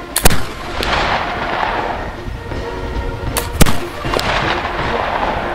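Flintlock 1800 pattern Baker rifle firing a black-powder service charge (96 grains FFg) behind a patched round ball: two shots about three seconds apart, each a sharp double crack. Faint background music runs underneath.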